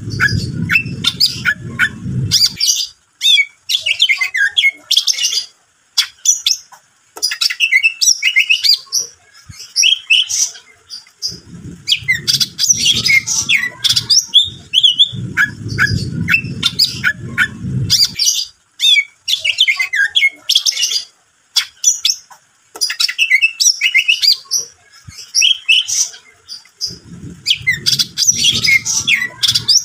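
Cucak ijo (greater green leafbird) singing vigorously: rapid, varied chirps, whistles and squawky notes in phrases broken by short pauses. A low rumble comes and goes underneath, at the start, through the middle and near the end.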